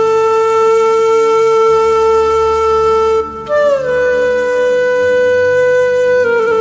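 Background music: a wind instrument holding one long note, then after a short break at about three seconds a second long note that starts a little higher and bends down, over a soft low drone.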